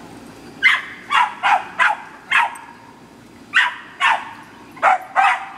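A dog barking in two runs of quick barks: five starting under a second in, then after about a second's pause four more. Each bark is short and sharp and drops in pitch.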